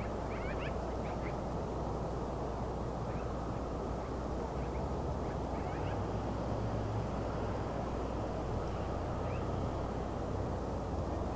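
Jet engines of a Boeing 737 MAX on its takeoff roll, heard from far off as a steady low rumble. A few faint short chirps sound above it.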